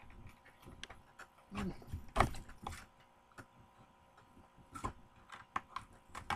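Scattered clicks and knocks from handling an opened plastic blister package, loudest a sharp snap about two seconds in.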